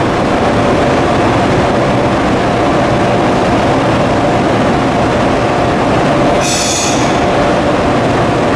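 JR ED76 electric locomotive heading a freight train, running its equipment in a loud, steady noise with a constant whine. A short hiss of air comes about six and a half seconds in.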